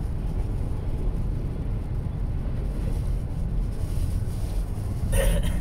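Steady low rumble of a car driving on a highway, heard inside the cabin: engine and tyre noise, with a brief louder noise near the end.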